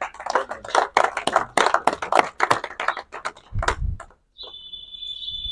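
Applause from a small crowd, a quick irregular patter of hand claps that thins out after about three seconds. It is followed by a low thump and then a steady high-pitched whistle that sets in about four and a half seconds in.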